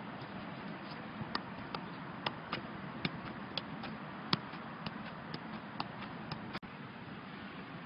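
Football being juggled, the ball tapped up again and again by foot, knee and head in quick light touches about three a second, over a steady background hiss. The touches stop shortly after six seconds in.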